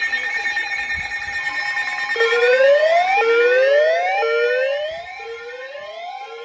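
Electronic emergency alert alarm. It starts as steady tones, then from about two seconds in becomes a rising whoop that repeats about once a second. It gets quieter about five seconds in, with a steady tone running underneath.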